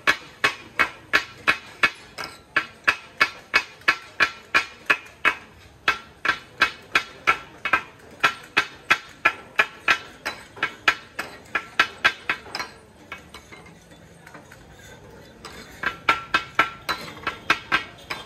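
Katakat: metal spatula blades clanging rhythmically on a large iron tawa griddle as goat offal and brain are chopped and mixed, about three ringing strikes a second. The strikes stop for about three seconds past the middle, then start again near the end.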